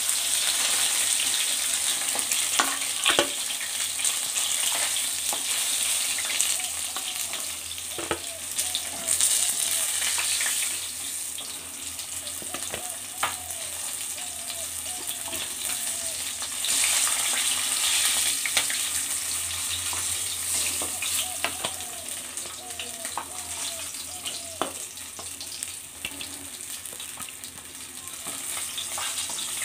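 Katla fish pieces sizzling as they fry in hot oil in a kadai, with a steady hiss. A few sharp knocks and scrapes of a spatula against the pan come as the fried pieces are lifted out.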